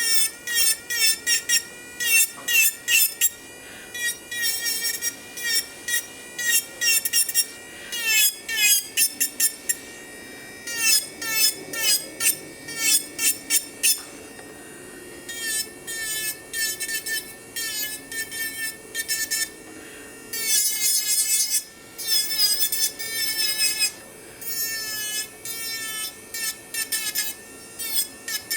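Mani Pro electric nail drill (e-file) running at about 30,000 RPM with a steady high whine, its bit filing gel polish off a nail in many short, rapid strokes, the pitch dipping slightly as the bit bites.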